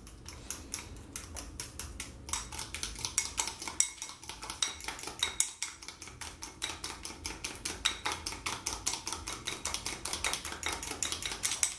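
A utensil beating egg yolks and olive oil by hand in a small bowl, clinking against the bowl in rapid, even strokes several times a second, steadier and louder after about two seconds. This is the hand-beating stage of homemade mayonnaise, done without a mixer.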